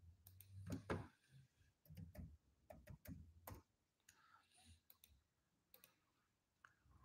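Faint, irregular clicking of a computer mouse and laptop keys.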